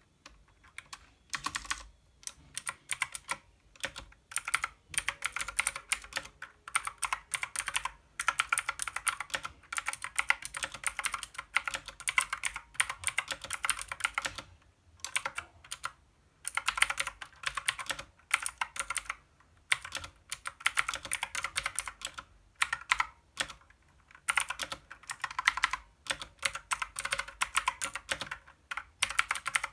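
Clicky blue-switch mechanical keyboard being typed on in quick runs of keystrokes, with short pauses between bursts.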